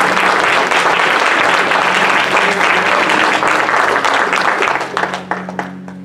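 Congregation applauding: dense clapping that thins to scattered claps about five seconds in and dies away near the end.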